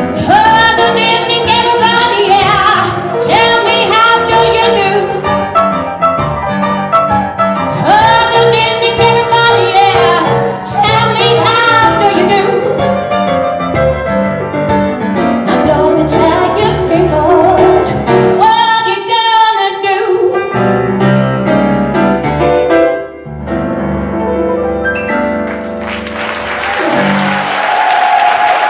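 A woman sings a blues song with piano accompaniment, holding long wavering notes, and the piano plays on alone after about twenty seconds. The song ends and audience applause breaks out near the end.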